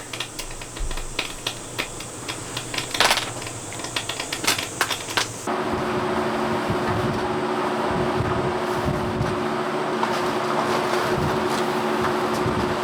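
Scattered light clicks and ticks, then from about five and a half seconds a camping air conditioner running with a steady hum and hiss.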